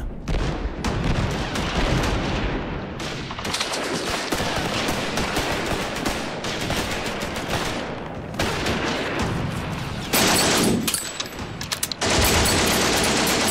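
Added battle sound effects of gunfire: dense, continuous rifle and machine-gun fire, with louder sustained machine-gun bursts near the end.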